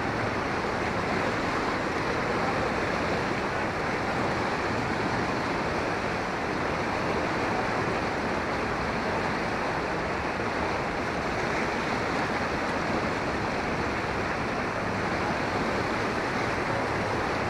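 Fast-flowing muddy floodwater rushing steadily, a continuous even water noise.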